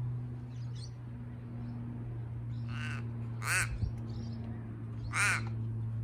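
Crow cawing: two caws close together about three seconds in, and a third near the end, over a steady low hum.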